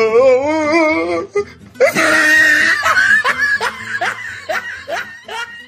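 Loud laughter over music: a wavering laugh at the start, then a run of short 'ha' bursts, about two or three a second, fading toward the end.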